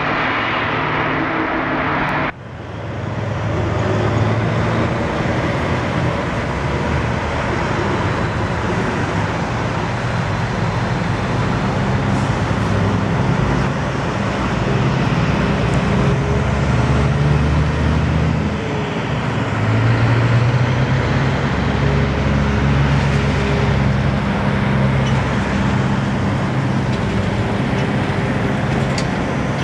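Highway traffic: semi-trucks and cars passing, with diesel engines droning under steady tyre noise, the engine note rising and falling as vehicles go by. The sound changes abruptly about two seconds in.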